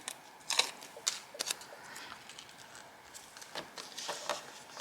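Light crackling and rustling of vellum die-cut pieces and their plastic backing being handled, with several sharp clicks and taps, a few in the first second and a half and more near the end.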